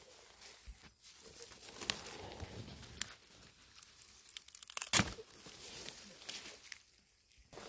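Dry plant material crackling and tearing, with a sharp snap about five seconds in.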